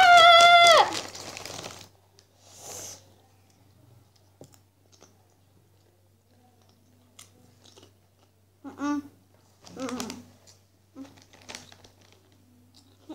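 A child's loud, high-pitched squeal, rising and then held for about a second at the start. Faint crinkling of a foil crisp bag and chip chewing follow, with two short vocal sounds about nine and ten seconds in.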